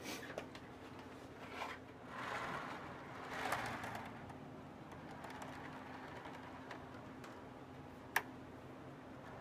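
On30 model railroad caboose and flatcar pushed by hand along newly laid track, their small metal wheels rolling and clicking over the rails and turnout: a test run of the new trackwork. The rolling swells about two to four seconds in, and there is one sharp click about eight seconds in.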